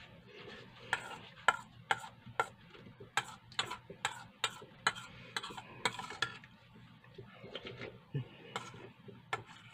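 Metal spoon clinking and scraping against a stainless steel bowl as rice and broth are stirred and scooped: a run of sharp clicks about two a second, thinning out after about six seconds, with chewing between them.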